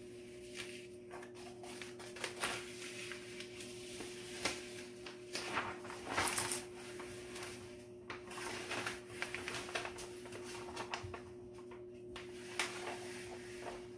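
Plastic release film being peeled back from a diamond-painting canvas and the canvas handled: irregular crinkling and rustling with small taps, loudest about six seconds in. A steady low hum runs underneath.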